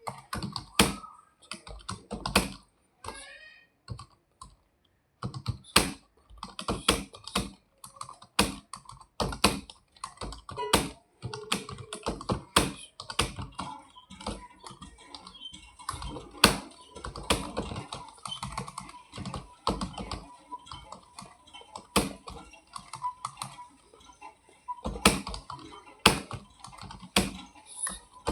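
Fast typing on a computer keyboard: an uneven, continuous stream of key clicks, with a brief pause about four seconds in.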